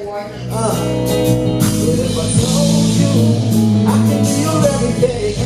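Live band music swelling in: sustained chords and bass with guitar, and a singer's voice coming in over them.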